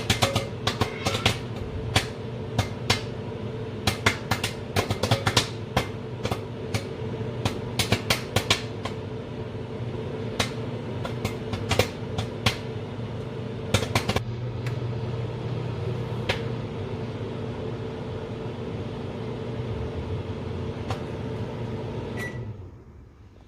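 Microwave popcorn popping in its bag inside a running microwave oven: rapid sharp pops over the oven's steady hum, thinning out after about 14 seconds as the kernels run out. Near the end the oven's hum cuts off with a short beep.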